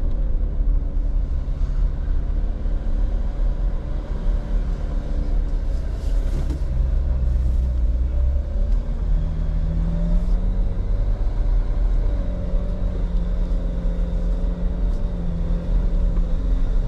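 Jeep engine running steadily at low speed as the Jeep crawls along an off-road trail, a constant low rumble whose engine note shifts a little partway through.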